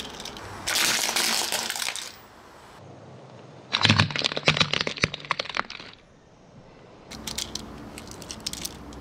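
Plastic toy cars crushed under a car tyre: a loud rapid run of cracks and snaps for about two seconds near the middle as the plastic bodies break. Lighter plastic clicks follow near the end as the broken pieces are handled.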